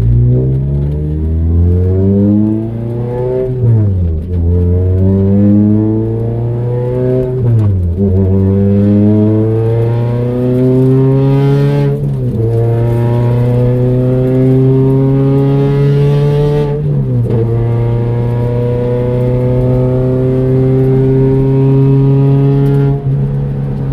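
2003 Toyota Celica GT-S four-cylinder engine pulling through the gears: the engine note rises under acceleration and drops sharply at each of about five upshifts, then holds fairly steady between the later shifts.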